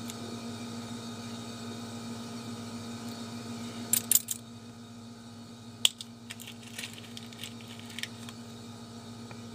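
Small metal lock pins clicking and clinking as they are handled and dropped into the pin chambers of a deadbolt cylinder. A quick cluster of sharp clicks comes about four seconds in and a single click just before six seconds, then lighter ticks, over a steady low hum.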